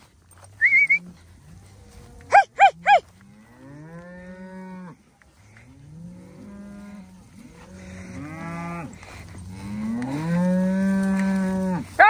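A herd of cattle mooing, several animals calling over one another with long, low moos that grow louder toward the end. About two and a half seconds in, three short, high calls come in quick succession.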